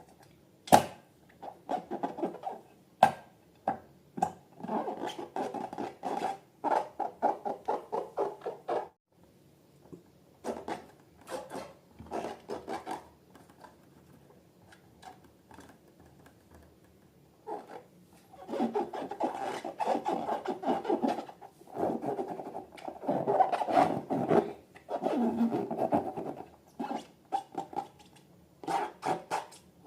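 Slime being squished and kneaded by hand, giving runs of fast sticky crackling squelches with short pauses between them.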